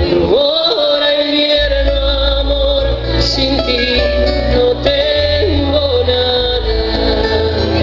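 Live band playing a ballad through a concert sound system: a male singer holds a long note for several seconds over bass, drums and guitar.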